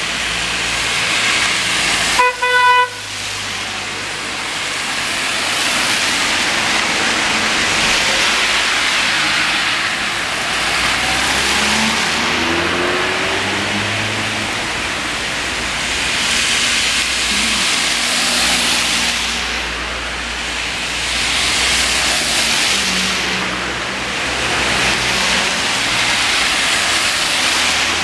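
Heavy rain hissing on a wet street as cars drive past on the wet road, their tyre swish swelling and fading every few seconds. A brief car horn honk about two seconds in is the loudest sound.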